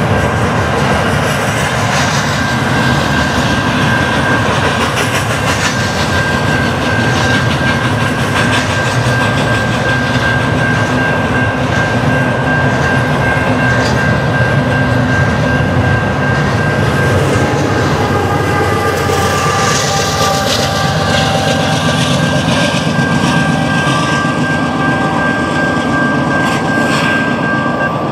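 CN double-stack intermodal freight train rolling past at a level crossing: a steady rumble with the clickety-clack of its wheels on the rails. A steady high-pitched tone sits over it and stops near the end as the last cars clear.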